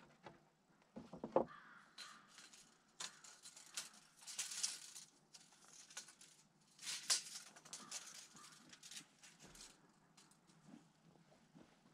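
Lumber being handled: scattered light knocks and clicks of wooden boards, with a sharper knock about a second in and two longer hissing scrapes about four and seven seconds in.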